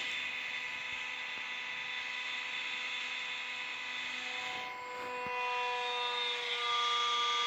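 Hydraulic press running, a steady mechanical whine of several tones. The pitch pattern changes about two-thirds of the way through and a rising tone comes in near the end, as the press works under load.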